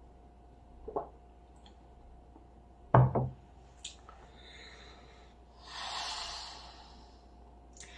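A glass of beer set down on a wooden table, with a sharp double knock about three seconds in, after a faint click a couple of seconds earlier. A couple of seconds after the knock comes a long breath out through the nose while tasting.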